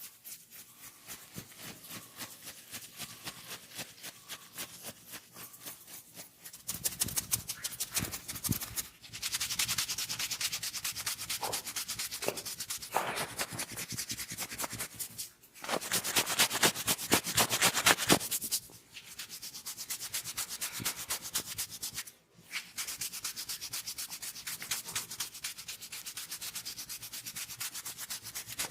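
Hands rubbing quickly back and forth over a person's head and neck in a massage. The rapid strokes come in several bouts separated by brief pauses and are loudest a little past halfway.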